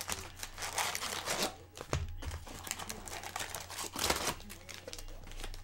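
Foil-wrapped football card packs crinkling and the opened cardboard box rustling as hands lift the packs out, in irregular rustles that are louder about a second in and again about four seconds in.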